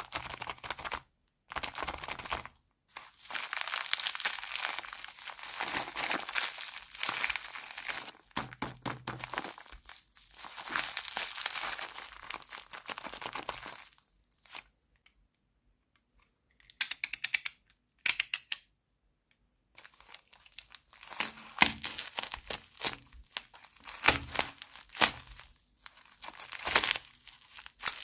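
Plastic packaging of a miniature toy kitchen set being crinkled and torn open in long rustling stretches. After a short lull about halfway, small hard plastic toy pieces click and tap in quick clusters.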